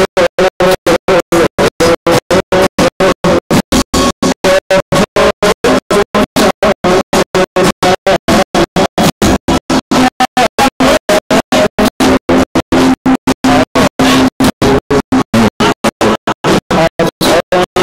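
Live band music from a stage, its sound chopped by rapid, regular dropouts to silence about five times a second.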